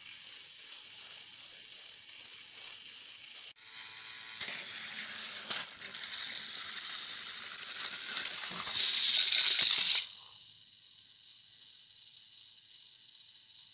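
Battery-powered toy train motors whirring with a high, rattling gear noise, broken by a few sharp clacks as the plastic engines knock together and topple. About ten seconds in the whirring stops, leaving a faint steady hum.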